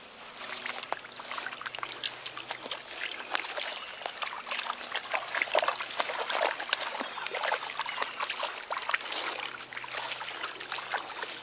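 A dog splashing about in shallow river water: many quick, irregular splashes over a trickling background, busiest in the middle.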